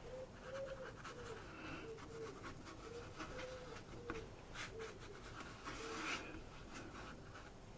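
Faint strokes of a watercolour brush on damp watercolour paper, with a faint short tone repeating about twice a second.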